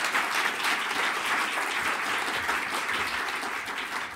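Audience applauding: many hands clapping in a steady, dense patter that eases a little near the end.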